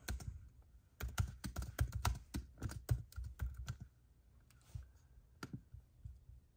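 Typing on a MacBook Air laptop keyboard: quick runs of key clicks, thinning to a few scattered keystrokes in the second half.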